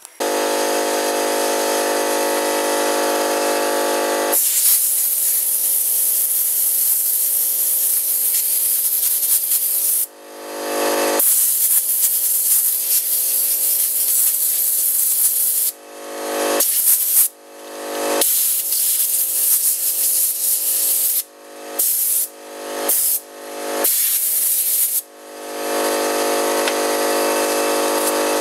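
Compressed-air blow gun hissing with a whistling tone as it blasts dust out of a chainsaw's carburetor cover and air filter. Two long blasts are followed by a string of shorter ones as the trigger is released and pressed again.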